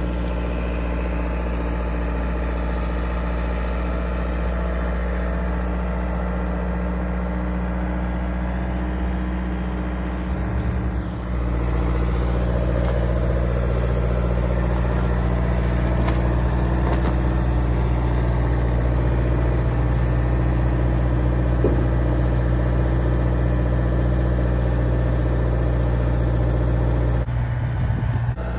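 Diesel engine of a Bobcat T180 compact track loader running steadily, a low hum that gets louder about eleven seconds in.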